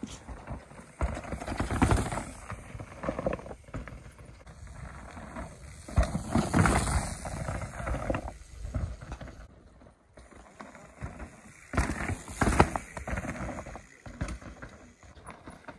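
Mountain bikes riding past one after another on a rocky dirt trail: tyre and bike rattle noise swells about three times as each rider goes by.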